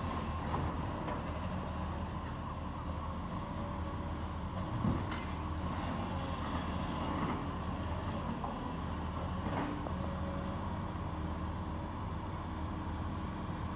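Heavy demolition machinery running with a steady low hum, with a few sharp knocks or clanks.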